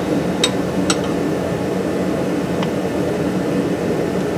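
A few light metallic clicks of combination wrenches on a nut and bolt, three of them in the first three seconds, as the nut is turned to force a rusted-in rear wheel hub out of its knuckle. A steady hum sits under them and is louder than the clicks.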